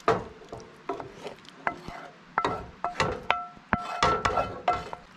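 Wooden spoon scraping thick cream sauce out of a skillet into a stainless steel pot of ravioli: a string of irregular knocks and clinks, several with a short metallic ring, as the spoon and pan edge strike the pot.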